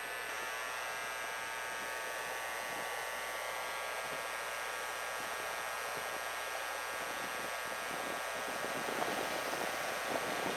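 EMD G12 diesel locomotive heard at a distance: a steady engine hum over a background hiss, growing slightly louder near the end as it approaches.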